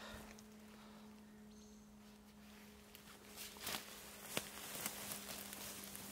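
Footsteps and rustling through forest-floor undergrowth and leaf litter, with a few sharp clicks and crackles in the second half, over a faint steady hum.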